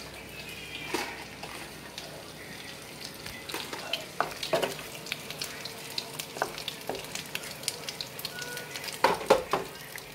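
Hot oil sizzling in a kadai where crab pieces have just been deep-fried, with many small pops. A wooden spatula knocks several times against the steel plate and pan as the fried crab is lifted out, the loudest knocks near the end.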